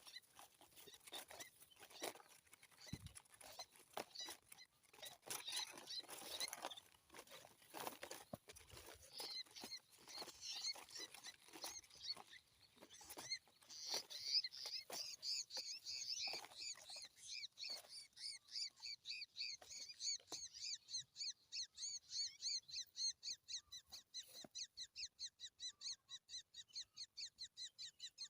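Scattered clicks and rustling, then, about halfway through, a small bird starts calling: a long, even run of high chirps, about three a second.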